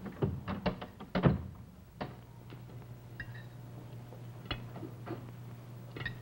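A wooden door being opened and shut with a cluster of knocks and footsteps, the loudest thump about a second in, followed by a few scattered knocks. A low steady hum sets in after about two seconds.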